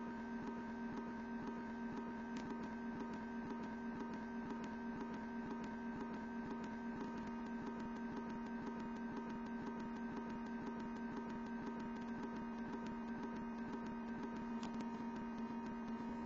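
Steady electrical hum, one low tone with several higher ones above it, and a fast, faint, regular ticking running along with it.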